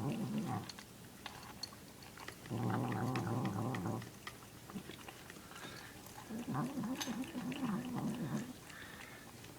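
Domestic cat making weird pitched noises with its mouth full while eating. It comes in three bouts: a short one at the start, a longer one about two and a half seconds in, and a wavering one in the second half. Small wet chewing clicks fall between the bouts.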